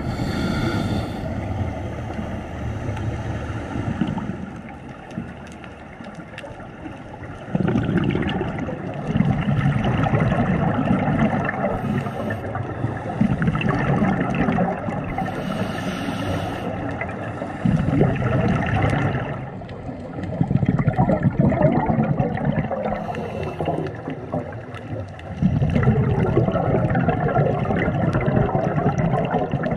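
Underwater sound of a scuba diver breathing through a regulator: loud bubbling exhaust bursts lasting a few seconds each, with quieter stretches between them.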